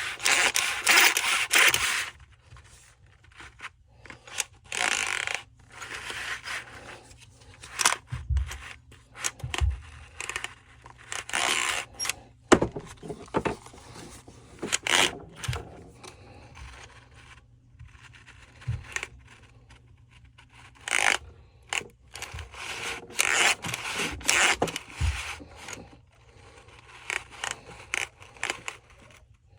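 Hands working on parts of a Stihl cut-off saw being rebuilt: irregular scraping and rustling with scattered light clicks and a few dull knocks as parts and tools are handled.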